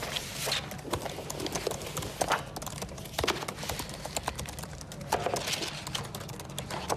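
Typing on a laptop keyboard: a string of quick, irregular key clicks.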